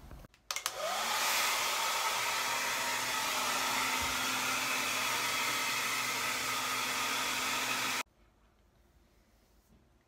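Handheld hair dryer switched on with a click, its motor spinning up with a rising whine and then blowing steadily with a loud rush of air. It cuts off suddenly about eight seconds in.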